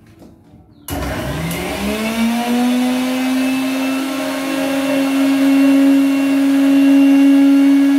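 Kitchen mixer grinder switched on about a second in, its motor whine rising in pitch as it spins up, then running steadily and loudly while grinding green masala of coriander, green chillies and ginger.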